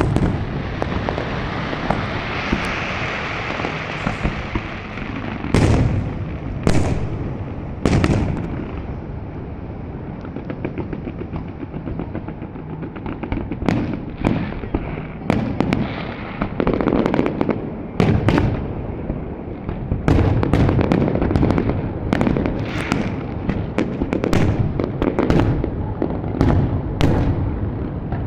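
Fireworks display: loud bangs of bursting shells over a steady crackle. The bangs come every second or two at first and pile up in quick succession through the second half.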